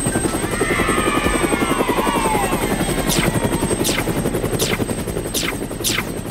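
Cartoon helicopter rotor sound effect: a fast, steady chopping. About half a second in, a falling whistle glides down for a couple of seconds, and in the second half a string of quick downward swishes comes roughly every 0.7 seconds.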